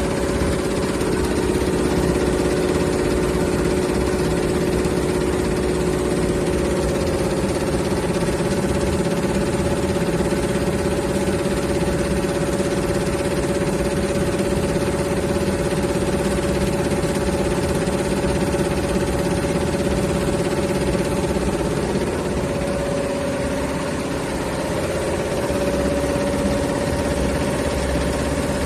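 Industrial embroidery machine running steadily: a continuous mechanical hum with a fast, even stitching rhythm underneath.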